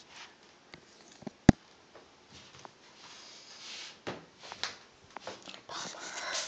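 Handling noise from a tablet being moved while it films: scattered clicks and rustles, one sharp click about a second and a half in, and a longer hissing rustle near the end.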